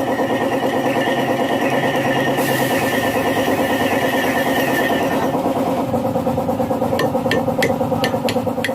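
Metal lathe running steadily while a thread is cut into a steel bearing-seat insert. A high whine from the cutting runs for about the first five seconds, and a series of sharp ticks, about three a second, comes in near the end.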